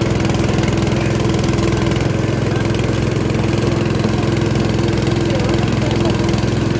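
Motorized sugarcane juice crusher running steadily as whole cane stalks are fed through its rollers, a constant engine-like hum with no change in speed.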